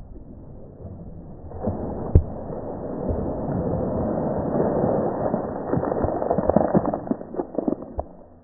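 Slowed-down, low-pitched wash of water splashing up out of a bucket and falling back onto pavement, with a sharp knock about two seconds in. The splash builds to a dense spatter that thins into scattered drops and stops near the end.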